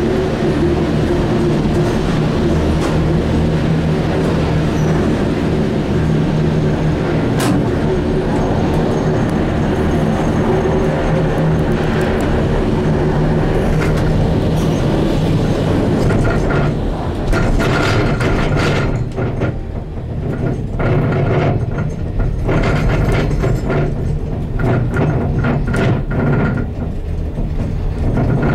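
BreckConnect gondola cabin running along its cable with a steady rumble. From a little past halfway, a run of irregular clacks and knocks sets in from the lift's running gear.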